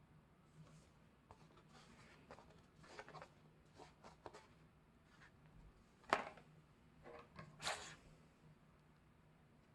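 Album packaging being handled: soft rubbing and light taps, with one sharper tap about six seconds in and a short scraping rustle about a second and a half later.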